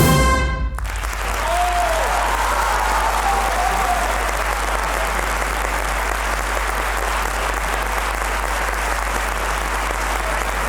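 A brass band's final chord cuts off under a second in, and the audience breaks into steady applause, with a few short calls rising above the clapping.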